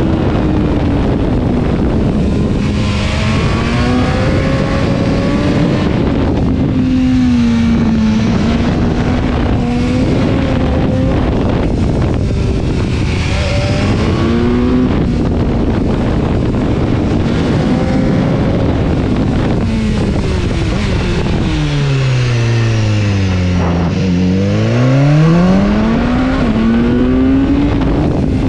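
BMW S1000-series motorcycle's inline-four engine pulling through the gears, its pitch rising and dropping again and again, under heavy wind rush on a helmet-mounted microphone. About two-thirds of the way through the engine note falls deeply as the bike slows, then climbs again as it accelerates.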